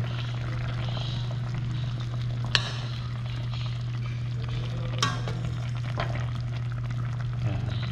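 Tilapia simmering and sizzling in vinegar and oil in a pan, over a steady low hum. A utensil knocks sharply against the pan twice, about two and a half and five seconds in, as the fish is turned.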